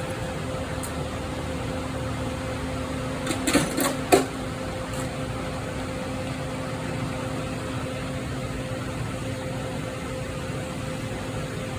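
Steady mechanical hum from a machine running in the shop, with a quick run of sharp metallic clicks and knocks about three to four seconds in, as of tools working on the engine.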